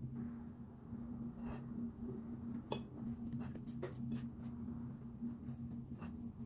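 Scattered crisp crunches and clicks of crunchy food being eaten close to the microphone, over a steady low electrical hum.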